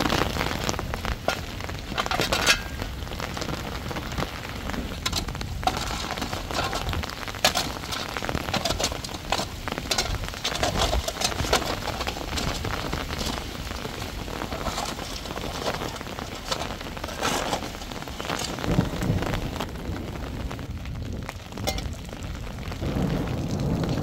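Heavy rain falling, with many sharp crackles and taps scattered through it.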